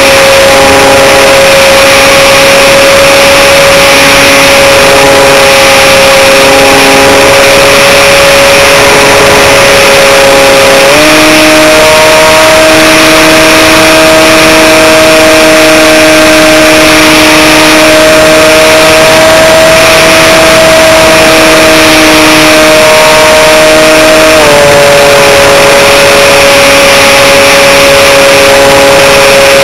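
Loud steady whine of an Aerobird Extreme RC plane's electric motor and propeller heard from on board, over a rush of air noise. The pitch steps up as the throttle opens about a third of the way in, then drops back about five seconds before the end.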